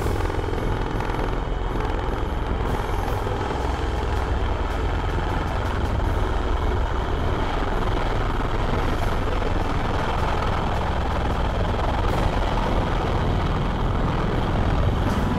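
CV-22 Osprey tilt-rotor hovering low in helicopter mode, rotors tilted upright: its two proprotors and turboshaft engines running with a steady, loud, deep rotor noise.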